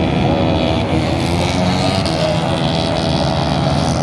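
Racing motorcycle engines running, a steady loud mechanical din.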